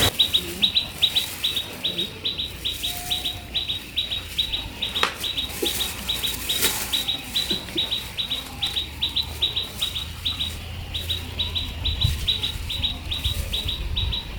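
Bird chirping rapidly and repeatedly: short high chirps at an even pace of about four a second, with a few faint knocks in the background.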